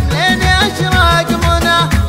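Gulf Arabic shayla: chanted vocals with gliding, ornamented pitch over a steady low drum beat.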